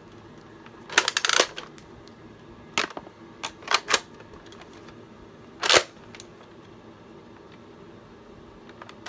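Plastic clicks and rattles from a Nerf Zombie Strike Scravenger's 6-round magazine being loaded with foam darts. A quick rattly cluster comes about a second in, a few single clicks follow, and one louder click comes near the middle.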